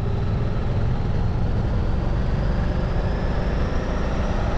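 Ducati Desert X motorcycle under way, its 937 cc Testastretta L-twin engine running steadily.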